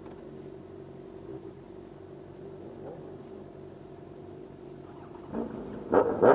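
Sport motorcycle engines idling steadily at a stop. About five seconds in, a throttle is blipped in three quick, sharp revs.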